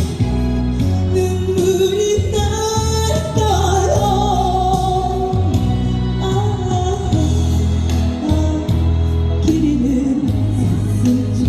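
Live busking music: a wavering melody line, tagged as singing, over backing accompaniment with a steady bass.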